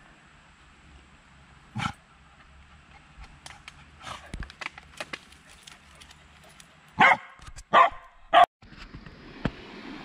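A dog barks at something in a hole among tree roots. There is one short bark about two seconds in, then a spell of light rustling and clicks, then three loud barks in quick succession.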